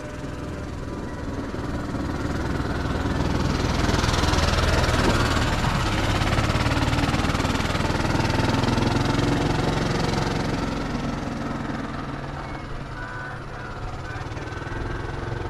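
Small golf-cart-style vehicle passing from behind with its engine running. It grows louder over the first few seconds and fades as the cart moves off up the road.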